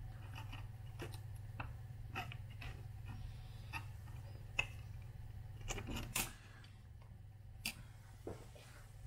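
Scattered sharp clicks and taps of metal binder clips being clamped onto two plastic rulers on a tabletop, the sharpest about four and a half seconds in and a quick cluster around six seconds. A steady low hum underneath stops about six seconds in.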